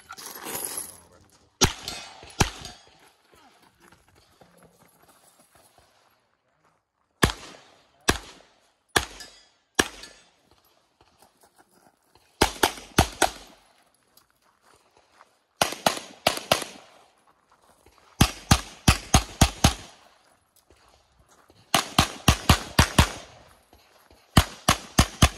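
Pistol shots from a Tanfoglio handgun fired in quick strings of two to seven, each string a few seconds apart, the shots sharp and closely spaced within a string.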